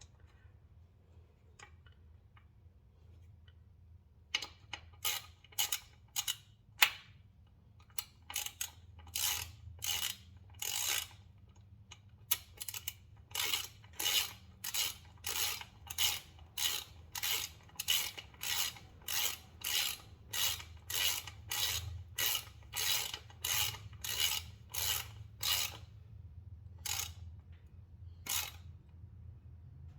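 Ratchet wrench with a 6 mm Allen bit clicking in repeated short strokes as it runs a spool slider bolt into the swingarm. The strokes are few and scattered at first, then come steadily at about two a second.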